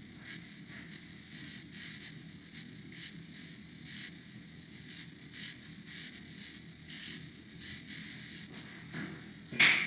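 Steady hiss of background noise with faint irregular crackles, broken by one short, sharp sound near the end.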